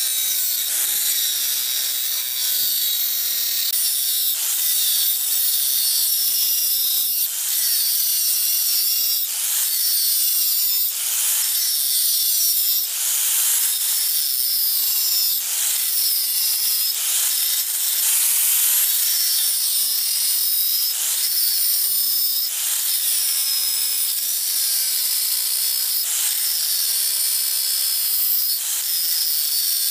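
Handheld electric power tool abrading rust off an old axe head. Its motor tone dips and recovers again and again as it is pressed against the metal and eased off, under a harsh scraping noise.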